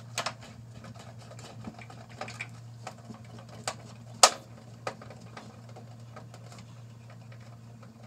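Scattered clicks and knocks of hands and tools working on a gas range, the sharpest knock about four seconds in, over a steady low hum.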